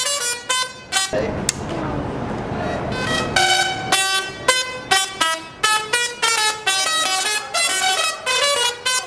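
DRSSTC Tesla coil playing a tune through its arcs: a run of buzzy notes of changing pitch, the discharge audio-modulated by an Arduino-driven interrupter. About a second in the notes give way to a noisy, unpitched arc buzz for about two seconds, then the tune resumes.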